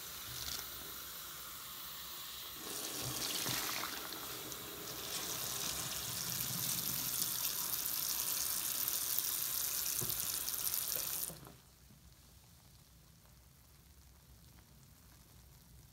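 Bathroom sink tap running onto a soapy foam sponge as it is squeezed and rinsed in the basin. The stream gets louder a few seconds in, then cuts off suddenly when the tap is shut, about eleven seconds in.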